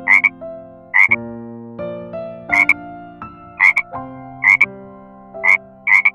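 Frog croaking repeatedly: a short double croak roughly once a second, about seven times.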